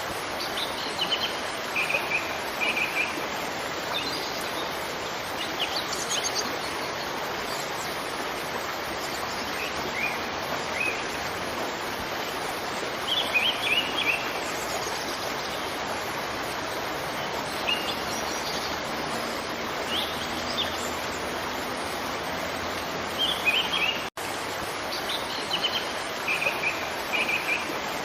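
Waterfall rushing steadily, with small birds chirping over it in short clusters of high notes every few seconds. The sound cuts out for an instant near the end.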